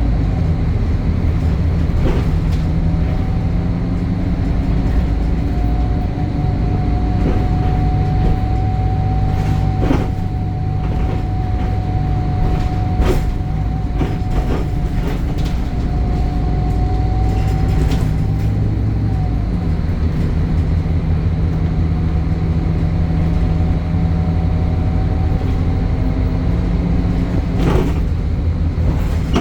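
Temsa Avenue LF 12 city bus running, its DAF Euro 5 diesel engine and ZF gearbox giving a steady drone with a thin high whine that holds through much of the run and fades out about two-thirds in. Occasional sharp knocks or rattles from the bus body come through over the drone.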